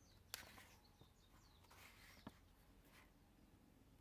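Very quiet paper handling as a thin printed zine is opened flat: a light tap, then a soft rustle of pages about two seconds in and a small tick just after.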